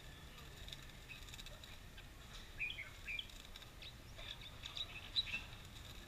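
Caged red-whiskered bulbuls giving short, scattered chirping notes, with a cluster of louder notes about two and a half to three seconds in and a sharp single note near five seconds in. A low steady rumble of street noise runs underneath.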